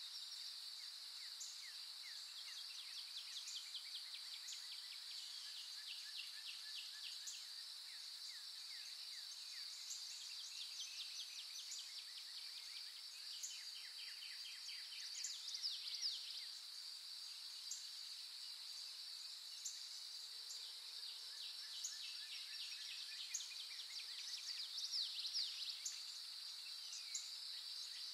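Outdoor nature ambience: a steady, high-pitched insect drone with birds chirping and trilling over it, a few louder calls near the middle and near the end.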